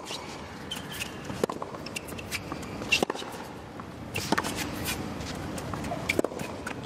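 Tennis rally on a hard court: sharp racket strikes on the ball about every second and a half, with ball bounces between them, over a low crowd murmur.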